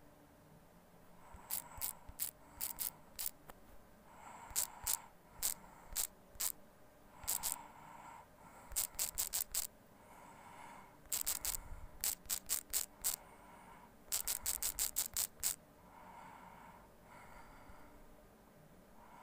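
Typing on a smartphone's on-screen keyboard: short sharp clicks, one per key press, in quick bursts of a few clicks per word with short pauses between.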